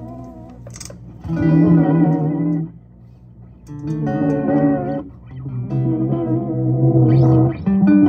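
Electric guitar played through a Binson Echorec 2 magnetic-drum echo unit: four sustained notes or chords, about two seconds apart, each ringing out and fading before the next.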